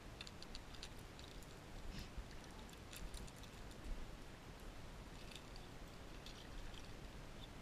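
Faint, irregular small clicks and ticks from a fishing rod and reel being worked during a retrieve, over a quiet outdoor background.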